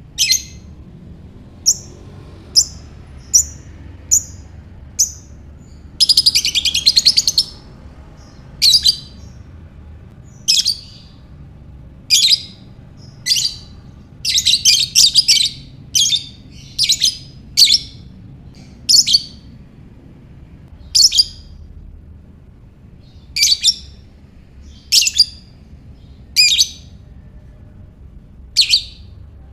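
Lovebird calling with sharp, high chirps every second or two, broken by a quick rapid trill about six seconds in and a burst of fast chattering about halfway through.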